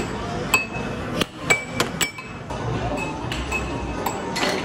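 Air hockey puck being struck by the mallets and knocking against the table's rails: a string of sharp clacks at irregular intervals, several with a short ringing tone.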